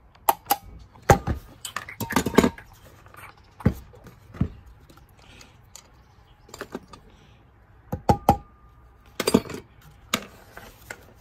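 Irregular metallic clinks and knocks of small tools and parts being handled on a workbench while working on a plastic blower fan wheel. The clinks come in clusters in the first couple of seconds and again near the end, with quieter handling between.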